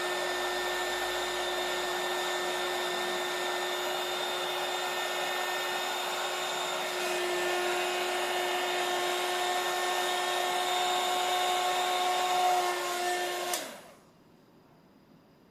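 Hot-air blower running steadily with a motor whine over the rush of air, blowing hot air onto the light's screen; it gets a little louder about seven seconds in. Near the end it is switched off and the motor's whine quickly dies away, leaving near silence.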